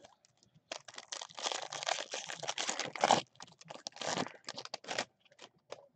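Foil wrapper of a Topps Chrome baseball card pack being torn open and crinkled by hand. A long crackling rustle runs from just under a second in to about three seconds, then a shorter crinkle comes around four seconds, followed by a few light clicks.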